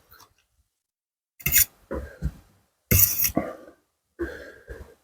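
Close-miked eating sounds: four loud, noisy mouthfuls of spicy seafood salad and fresh vegetables being bitten, slurped and chewed, starting about a second and a half in.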